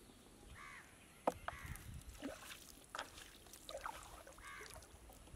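Light water splashes and drips as a fishing net is handled in shallow floodwater, with several short clicks and splashes. A bird calls a few times in the background, short arched calls about half a second in and again near the end.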